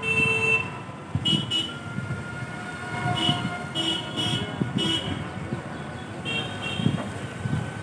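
Vehicle horns beeping in short, repeated high-pitched toots over steady road-traffic noise. The first toot is about half a second long and the rest are shorter.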